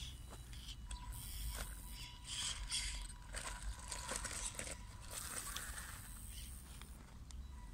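Small RC crawler driving over dry stony ground: gravel and pebbles crunching and clicking under its tyres in irregular bursts.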